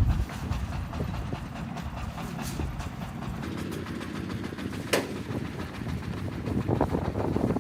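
Self-loading concrete mixer's engine running with a steady low rumble, and a single sharp clank about five seconds in.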